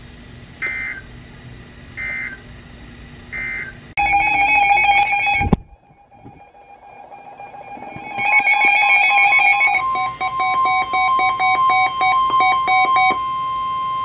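NOAA Weather Radio emergency alert: three short bursts of the SAME digital header about a second apart, then the weather radios' alarms beeping in several pitches, and from about ten seconds in the broadcast's long steady warning alarm tone, the signal that a severe thunderstorm warning is coming.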